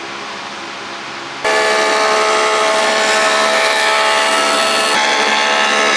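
Electric wood planer running unloaded, then about one and a half seconds in a board enters the cutter head and it jumps to a loud, steady cutting noise with a whine in it.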